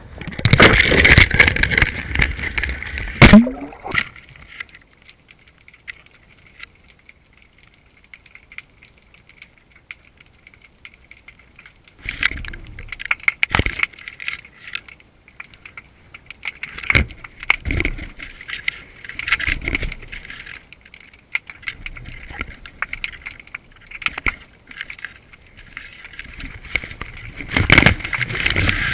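Rattling, clinking handling noise in bursts. A loud clatter comes first, then several quiet seconds, then scattered knocks and rattles that grow louder near the end.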